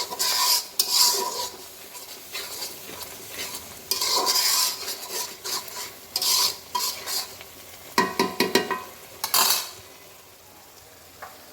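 A utensil stirring and scraping a masala of onion and ground spices around a cooking pot, in irregular bursts of strokes, over the sizzle of the spices frying in oil with a splash of water added to keep them from burning onto the pot.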